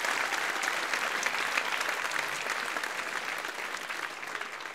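Live audience applauding after a song, dense clapping that gradually dies down toward the end.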